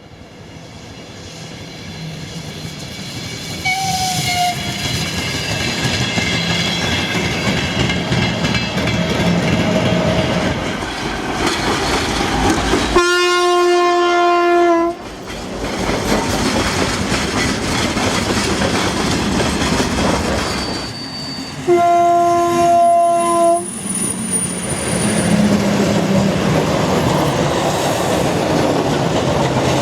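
Steady rumble of a moving vehicle, building up over the first few seconds, with a horn sounded twice, each blast about two seconds long.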